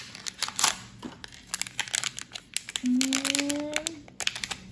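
Blind-box pin packaging being torn open and crinkled in the hands, many quick crackles. About three seconds in there is a short held hum, slightly rising, lasting about a second.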